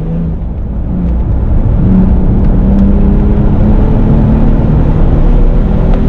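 2017 Porsche 911 GTS's twin-turbocharged flat-six pulling hard under acceleration. It gets louder about a second in, then holds a steady note over a low rumble of wind and road noise.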